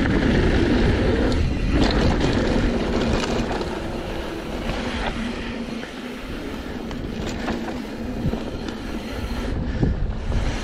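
Mountain bike descending a loose, blown-out dirt trail: wind rumbling on the microphone, tyres running over dirt, and the bike rattling and knocking over bumps.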